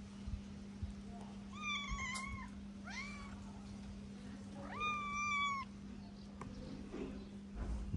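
Hungry stray cat meowing three times: a long drawn-out meow about a second and a half in, a short rising one near three seconds, and another long meow near five seconds.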